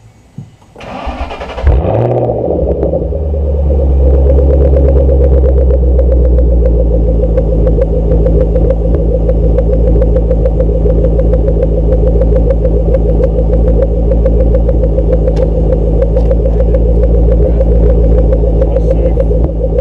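2008 Ford Mustang GT's 4.6-litre V8 starting through newly fitted GT500KR/FR500S mufflers, heard right at the tailpipe. The starter cranks for about a second, the engine catches with a brief flare, then settles into a loud, steady idle.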